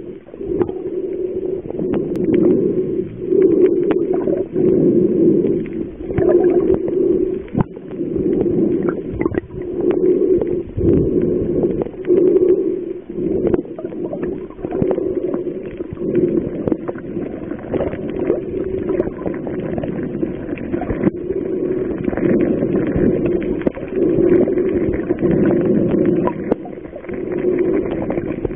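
Muffled underwater sound from a submerged camera: a low rumble of moving water that swells and fades about once a second, with scattered short clicks.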